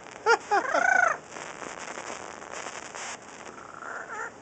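Amazon parrot vocalizing: a quick run of short rising-and-falling calls ending in a longer arched one, taken for laughing, then a fainter call near the end.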